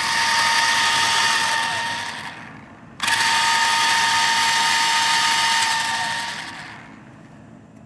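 Monster Jam Megalodon Storm RC monster truck's electric drive motor and gearbox whining at full throttle while the truck is held off the ground, its wheels spinning free. There are two runs: each cuts in suddenly, holds a steady whine, then winds down over about a second.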